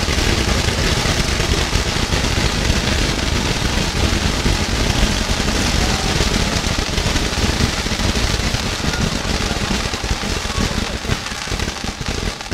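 Hand-held bamboo-tube firework (tezutsu hanabi) spewing a tall fountain of sparks with a dense, steady hiss and rumble that dies down near the end.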